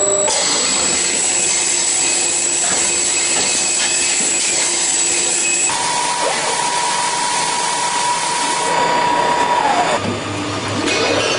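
CNC rotary transfer deburring machine running, a loud steady whirring noise from its spindle heads. A motor whine holds one pitch for a few seconds, falls away about ten seconds in, and then rising whines start as spindles speed up.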